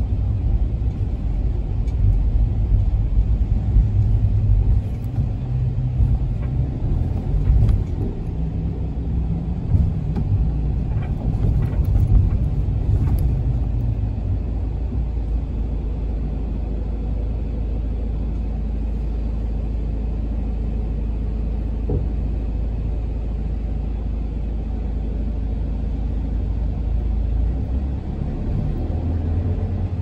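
Toyota HiAce minibus's diesel engine and road noise heard from inside the cabin while under way. The engine note rises and falls for the first dozen seconds or so, then settles into a steady low rumble.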